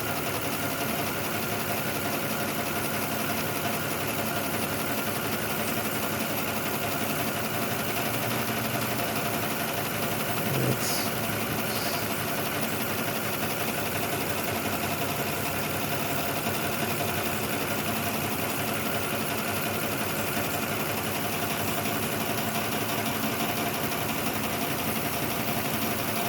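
2006 Lexus ES330's 3.3-litre V6 idling steadily with a misfire: cylinder 5 is dead from a stuck-closed fuel injector, and the engine is still missing even after the injector was tapped on.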